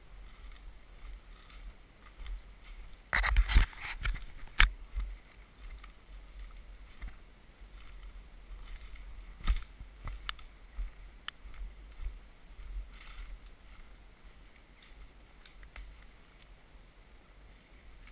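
Footsteps rustling through dry fallen leaves, with a short burst of louder knocks about three seconds in and a few single sharp clicks later on.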